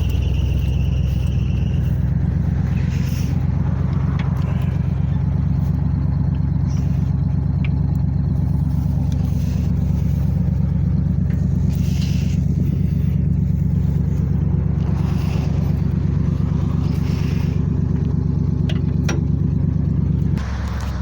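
Vehicle engine running at a steady pitch while driving with a loaded trailer, easing off to lower revs near the end. Faint rattles and scrapes sound now and then over the engine.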